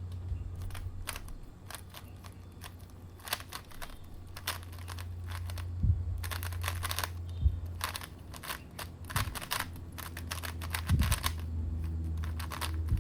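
GAN 356R magnetic speedcube being turned fast during a solve: quick runs of plastic layer-turning clicks with short pauses between them, over a steady low hum.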